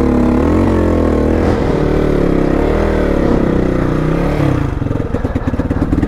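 Hero Xpulse 200's single-cylinder engine running at low speed, its revs rising and falling unsteadily, then settling into a slow, even low-rev putter near the end. The engine is down on power, struggling for oxygen at high altitude.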